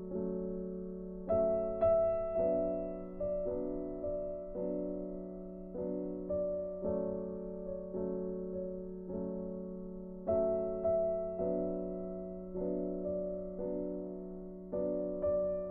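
Background music: a slow piano melody, notes struck about twice a second and dying away, over a held low note.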